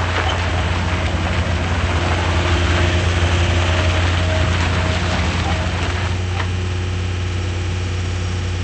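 John Deere 326D skid steer's diesel engine running steadily with a deep, even hum.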